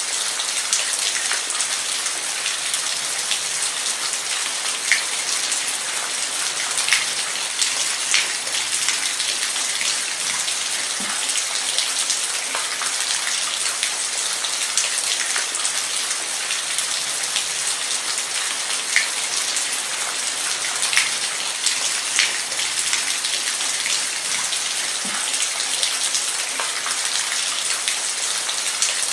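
Steady rainfall: a dense hiss of rain with scattered single drops ticking sharply close by.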